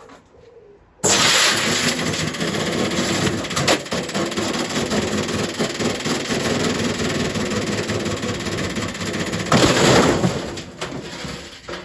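A Candy washing machine being wrecked: a sudden, very loud continuous rushing and clattering noise starts about a second in. It swells near the end, then dies away.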